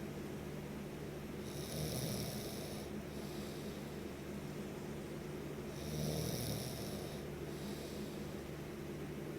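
Snoring: slow, regular breaths over a steady low drone, with a louder, hissy snore about two seconds in and again about six seconds in.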